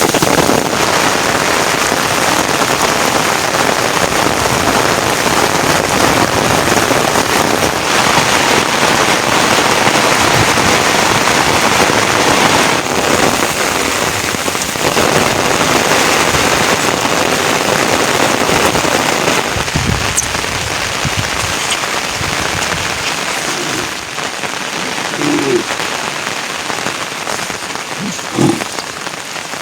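Heavy rain falling steadily, a dense hiss that eases slightly in the last few seconds, with two brief short sounds near the end.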